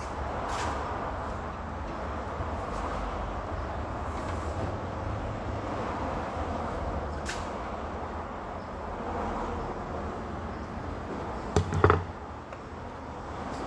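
Steady low background rumble with a few light clicks, then a short burst of loud knocks and clatter near the end, like metal parts or tools being handled.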